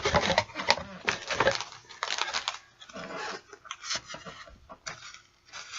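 Packaging being handled: irregular rustling and crinkling with short clicks and light knocks.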